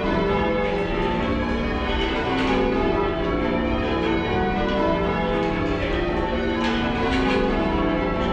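Change ringing on a light ring of ten church bells, heard from the ringing room, where they sound rather quiet and slightly mushy. It is a continuous run of overlapping bell strikes.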